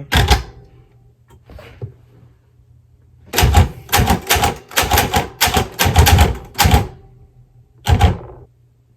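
Royal typewriter keys striking the paper: a single keystroke at the start, then a run of about a dozen keystrokes at three or four a second, and one more near the end.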